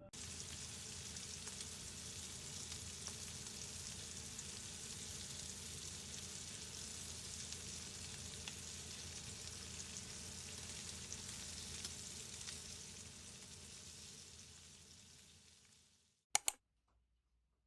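Food sizzling and crackling in a frying pan, a steady hiss that fades away near the end, followed by two sharp clicks.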